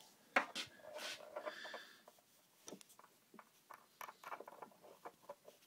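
Faint handling noise: light clicks and taps as a phone and a small metal part are moved about and set against a wooden bench, with a couple of sharper clicks about half a second in.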